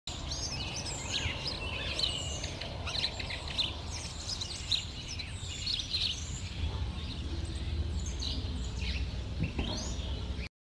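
Many small birds chirping and twittering over a steady low rumble of outdoor background noise. The recording cuts off suddenly near the end.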